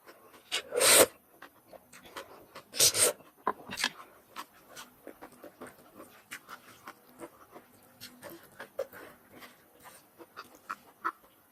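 Person eating noodles close to the microphone: two loud slurps about one and three seconds in, then a long run of small wet chewing and lip-smacking sounds.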